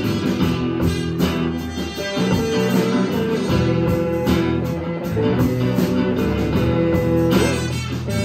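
Live band playing an instrumental passage: a trumpet holds long notes over two electric guitars, bass guitar and a drum kit keeping a steady beat.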